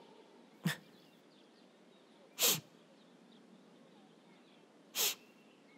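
Three short sniffles about two seconds apart, voiced for a cartoon tomato whose eyes are welling up with tears from standing next to an onion.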